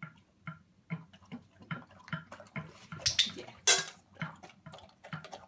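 Australian shepherd lapping water from a stainless steel bowl, about two laps a second, with two louder, splashier laps a little past three seconds in.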